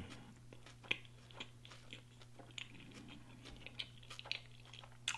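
A person chewing a mouthful of food close to the microphone, with his mouth closed: soft smacks and clicks at irregular moments, the sharpest about a second in.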